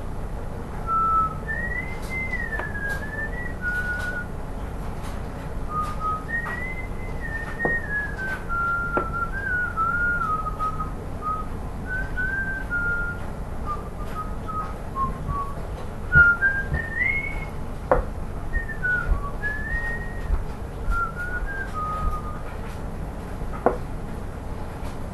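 A person whistling a meandering tune, short phrases with pauses between them, with a few light knocks in between.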